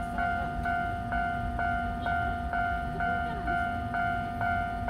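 Japanese level crossing warning bell ringing, a steady two-tone electronic clang at about two strikes a second, sounding continuously while the crossing stays closed for the stopped train.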